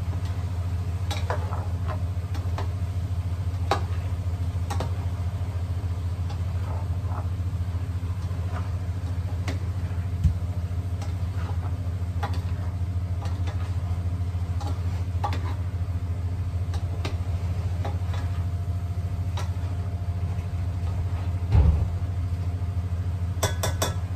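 Steady low hum throughout, with scattered light clicks and scrapes of a plastic spoon stirring vegetables in a stainless steel pan, and one duller knock about three-quarters through.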